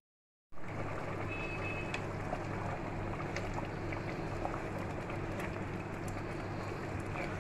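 Pot of mutton curry with potatoes boiling vigorously: a steady bubbling hiss with a low hum underneath and a few faint light taps. It cuts in after about half a second of silence.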